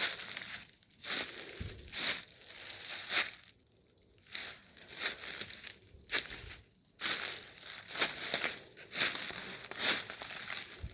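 Footsteps crunching through dry leaves and sticks on a woodland floor, about one step a second.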